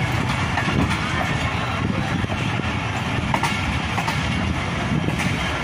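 Passenger train running along the track, heard from an open coach doorway: a steady rumble of the coaches' wheels on the rails.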